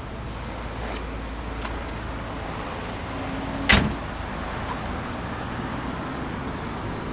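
A steady low rumble, then, about halfway through, a short squeak and a single sharp slam of a 1978 VW Beetle's door being shut.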